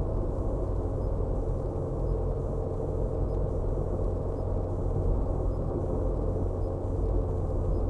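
Steady low drone of a car's engine and tyres on the road, heard from inside the cabin while driving, with an even hum running through it.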